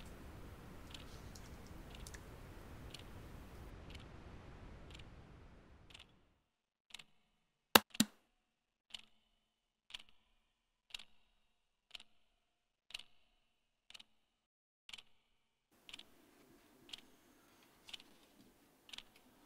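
A desk clock ticking about once a second. Faint room noise drops away about six seconds in, leaving only the ticks, and a sharp double click, louder than the ticks, comes about eight seconds in.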